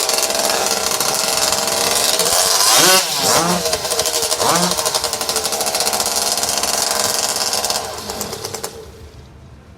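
Racing hot saws, chainsaws built around two-stroke motorbike engines, running loud during their warm-up, revved up and down a few times about three to five seconds in, then shut off about eight seconds in.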